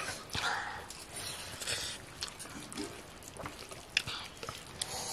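A bare hand mixing and squeezing cooked rice on a steel plate: soft squishing with scattered light clicks of fingers against the metal, and one sharper click a little before four seconds in.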